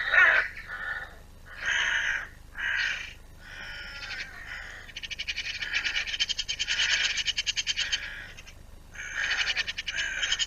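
Hooded crows calling with harsh, repeated caws, then a fast rattling chatter from about five seconds in that stops and starts again near the end.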